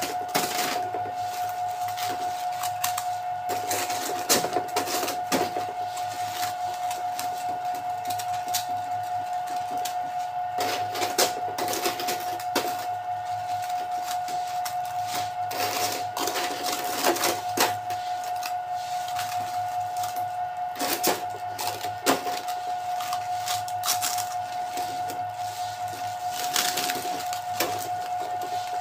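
Thin clear plastic bag crinkling and crackling in irregular bursts as baked buns are packed into it by hand. A steady high-pitched hum runs underneath.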